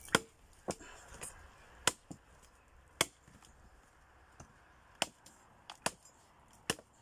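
Machete blade chopping a tree branch held across a wooden post: a series of sharp, irregularly spaced chops, about eight in all.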